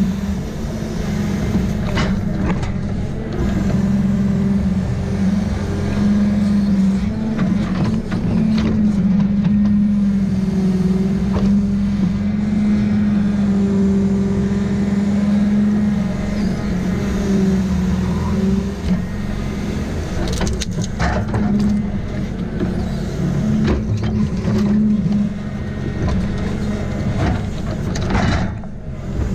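Valmet 840 forwarder's diesel engine running steadily while the crane works, with the hydraulics whining in short rising and falling tones as the boom and grapple move. Several sharp knocks as logs land in the load bunk.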